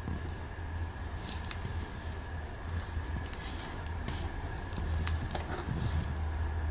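Faint small plastic clicks and handling noise as a Gokai Red Ranger Key toy figure is folded into its key form, over a steady low hum.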